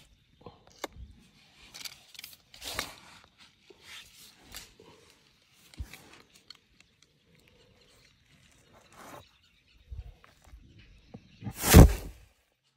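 Elephant blowing a loud, breathy blast of air through its trunk at the sandy ground near the end, throwing up dust. Before it come scattered soft rustles and snuffles.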